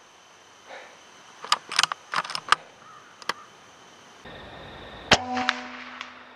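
A run of sharp mechanical clicks about a second and a half in, then about five seconds in a single loud crack with a brief ringing tail: a Hatsan BullBoss .25 air rifle being handled and fired.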